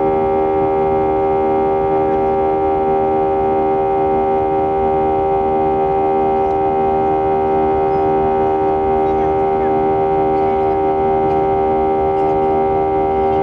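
Airbus A320's IAE V2500 turbofan engines heard from inside the cabin during the climb after takeoff: a loud, steady drone of several held tones over a rumble, with a regular pulsing in the tones.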